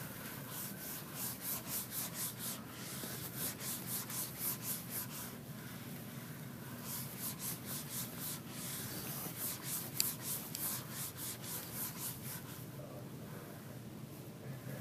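Handheld whiteboard eraser rubbing back and forth across a whiteboard in quick strokes, about three or four a second, in several runs with short pauses between them.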